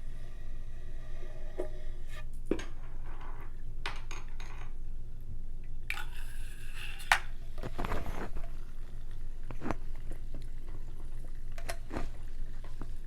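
Eating sounds: utensils clicking and knocking against a dish, with slurping and chewing.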